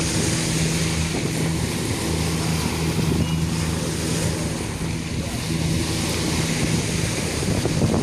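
Small waves breaking and washing up over a pebble beach, with wind on the microphone. A steady low motorboat engine hum comes and goes underneath.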